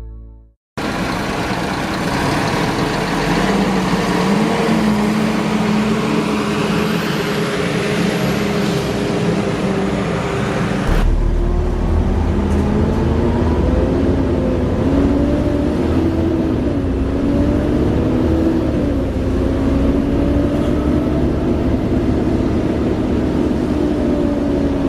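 Class 37 diesel locomotive 37030 running under power: a loud, continuous engine note whose pitch drifts up and down, with the vacuum-cleaner-like whine that earns it the name 'Hoover'. About eleven seconds in, the sound changes abruptly to a deeper, heavier rumble.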